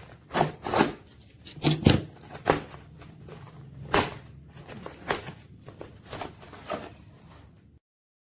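Parcel packaging being handled and opened by hand: a run of irregular scratchy rustles and rips, stopping abruptly near the end.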